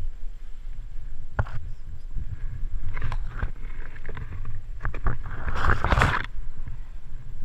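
Rustling and crackling of leaves and undergrowth as a hand pushes through bushes and reaches into the forest leaf litter to pick a mushroom, the loudest rustle about five and a half seconds in. Under it a steady low rumble on the body-worn camera's microphone.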